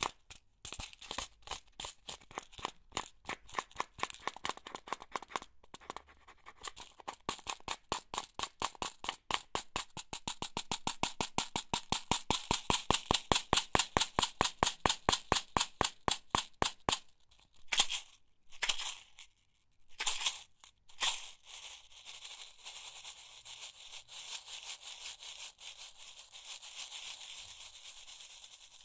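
A box of office pins shaken in a regular rhythm, each stroke a sharp rattle of pins against the box, growing faster and louder to about four strokes a second before breaking off just past halfway. A few separate rattles follow, then a steady, continuous rattle of the pins.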